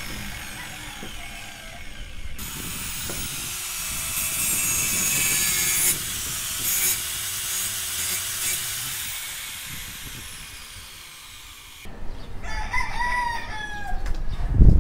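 Handheld DeWalt angle grinder running and cutting through a strip of ceramic tile: a loud, high grinding noise over the motor's steady tone. It starts suddenly a couple of seconds in and cuts off about three seconds before the end. After that a rooster crows.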